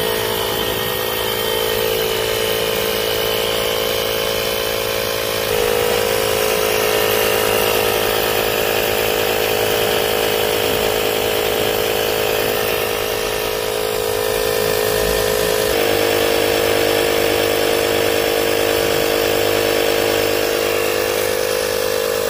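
Einhell Pressito cordless compressor running steadily as it inflates a car tyre toward a preset 30 PSI, a constant motor-and-pump hum whose pitch and level shift slightly twice.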